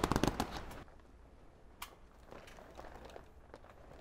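Plastic vapour-barrier membrane crinkling and rustling as it is handled, loudest in the first second and then fainter, with one sharp click about two seconds in.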